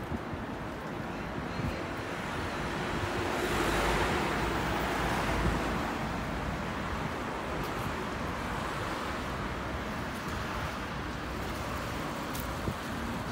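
Road traffic on a city bridge: a steady hiss of passing vehicles, with one vehicle passing close by that swells loudest about four to five seconds in and then fades.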